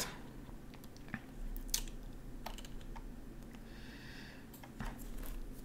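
A few faint, short clicks scattered over quiet room tone.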